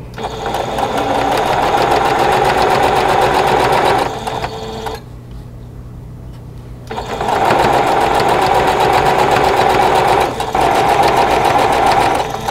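Singer electric sewing machine stitching seams in runs, with the pieces fed through one after another. It stops for about two seconds in the middle and pauses briefly again near the end.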